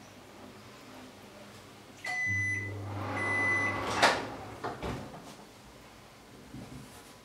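A kitchen appliance beeping and humming: a high electronic beep about two seconds in, a low mains hum for about a second and a half with a second beep near its end, then a sharp clack and some lighter clatter.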